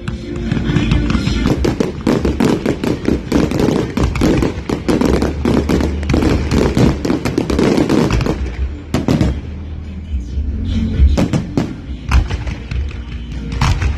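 Strings of firecrackers crackling in a dense rapid stream, thinning to scattered louder bangs about nine seconds in, with music underneath.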